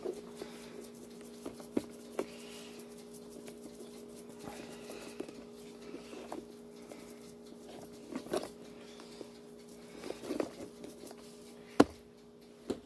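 Steady low two-tone hum, with scattered light clicks, taps and knocks of kitchen utensils and seasoning containers being handled; a single sharp knock near the end is the loudest sound.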